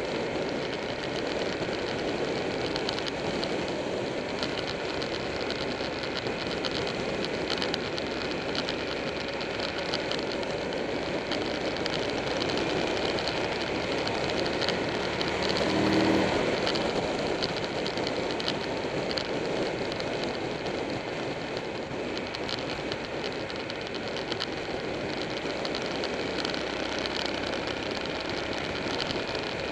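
Steady wind rush over the microphone of a Buell 1125R motorcycle riding at road speed, with its engine running beneath the wind. About halfway a brief, louder pitched engine note rises above the wind for about a second.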